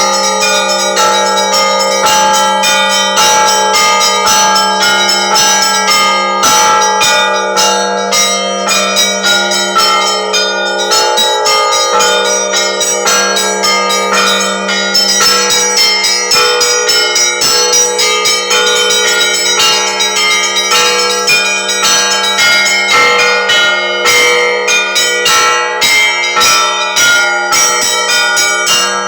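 Russian Orthodox church bells ringing: many smaller bells struck in quick, dense succession over the steady low hum of a large bell.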